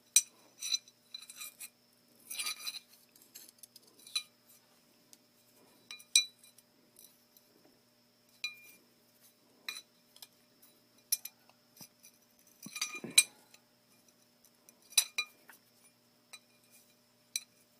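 Pieces of cut steel stock clinking against each other and the bench as they are handled and their cut ends lined up: scattered metallic clinks with a short ring, the loudest about 13 seconds in.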